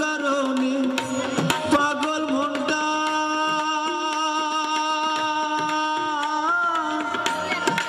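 Instrumental interlude of a live Bangladeshi bicched gaan folk band: a melody instrument playing long held notes, with a slide about six seconds in, over drum strokes that are busiest in the first two seconds.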